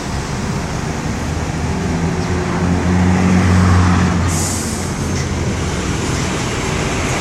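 Coach bus engine running as the bus passes, its low hum swelling to a peak about three to four seconds in and then easing. A short hiss of air comes a little past four seconds in.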